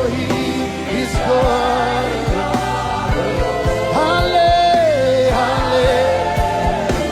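Live gospel worship music: voices hold long, wavering sung notes over a band with a steady drum beat.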